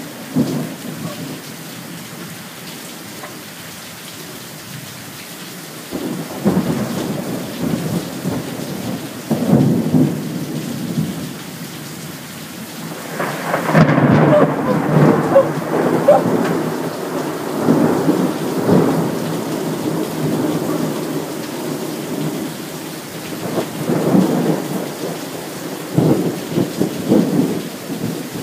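Heavy rain falling steadily, with several rolls of thunder rumbling over it; the longest and loudest roll comes about halfway through.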